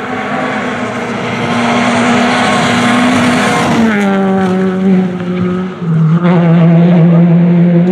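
Peugeot 208 rally car passing at speed. Its engine note holds steady as it approaches, falls in pitch as the car goes by about four seconds in, and breaks off briefly about six seconds in before carrying on as the car pulls away.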